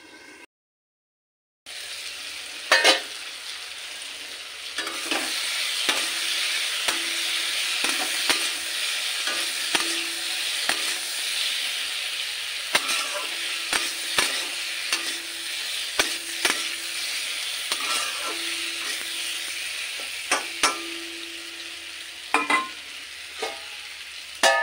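Oil sizzling as turmeric-coated chunks fry in a black iron kadai, with a metal spatula clinking and scraping against the pan as they are stirred. After a brief silent gap near the start, the sizzle swells about five seconds in.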